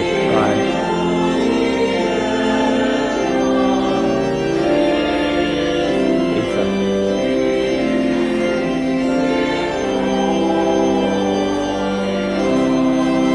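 Church organ playing a slow hymn in held chords that change about once a second.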